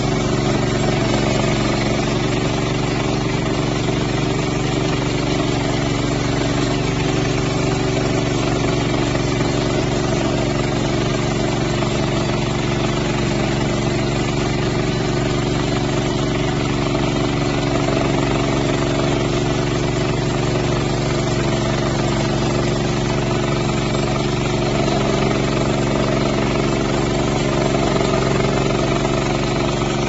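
Kohler gasoline engine of a portable bandsaw mill running steadily, with a brief dip in pitch near the end.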